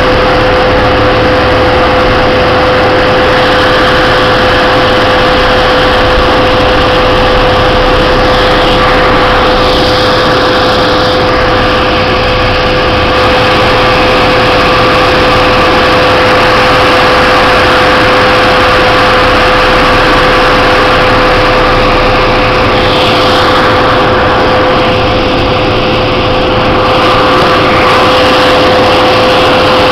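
Snowcat's diesel engine and tracks running steadily under load as the machine climbs, with a constant whine over the engine noise, heard from the cab.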